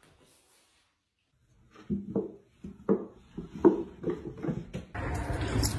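A fluffy white cat's paws landing on stairs: about seven soft, irregular thumps over three seconds. Near the end a steady hiss begins.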